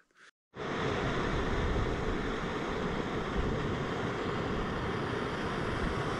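Camp stove burner running with a steady hissing roar, heating water. It starts abruptly about half a second in.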